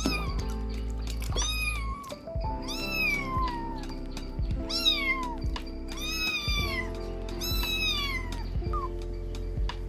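Kittens meowing again and again, high-pitched mews that fall in pitch, about six in a row, over background music with long held notes.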